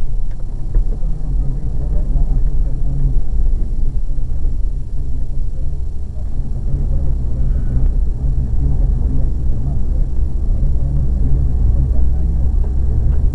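Car driving through town traffic, heard from inside the moving car: a steady, loud low rumble of engine and road noise.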